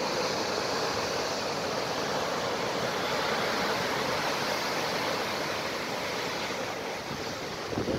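Heavy sea surf breaking on a rocky shore below a cliff: a steady rushing wash that eases slightly near the end.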